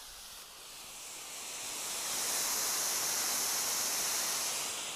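Homemade smoke bomb burning on the ground, a steady hiss as it pours out dense smoke, growing louder from about a second in and easing off near the end.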